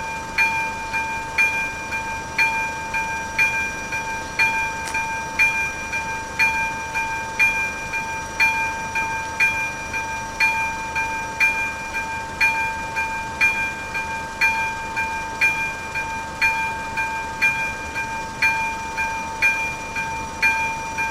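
Second-generation electronic bell of an AŽD71 level-crossing warning signal ringing: an even, bell-like strike repeating about once a second over a steady ringing tone, the warning that a train is approaching.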